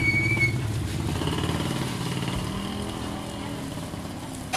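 A small motorcycle engine passing close by, loudest at the start and fading away over the next few seconds as it drops slightly in pitch.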